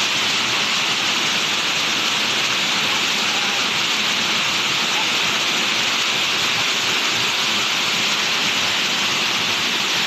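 Waterfall cascading down a rock face: a steady, unbroken rush of water.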